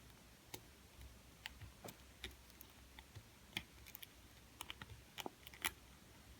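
Faint, irregular clicks and ticks of a lock pick working the pins of a JJ80 challenge lock during single-pin picking, with the pins not yet setting properly.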